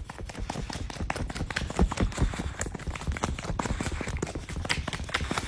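A dog thrashing about on a couch right against the phone: a rapid, irregular run of thumps and rustling.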